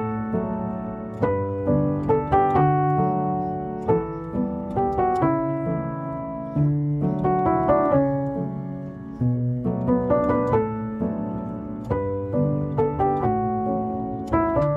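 Background music: a gentle piano piece of single notes and soft chords, each note struck and left to ring out.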